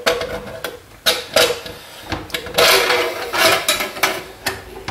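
Stainless-steel pressure cooker lid being set on the pot and its bar-clamp latch worked: a string of metal clicks and knocks, with a scraping rattle of metal on metal a little over halfway through.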